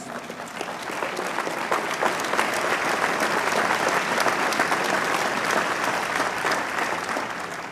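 Large crowd applauding, many hands clapping at once; the clapping builds over the first second, holds steady, then tapers off near the end.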